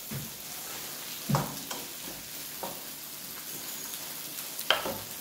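Vegetables sizzling in oil in a wok while a wooden spatula stirs them. A few knocks of the spatula against the pan stand out, the loudest about a second and a half in and near the end.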